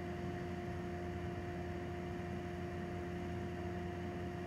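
Steady room hum with a faint whine held on one pitch, unchanging throughout; no movement or breathing stands out.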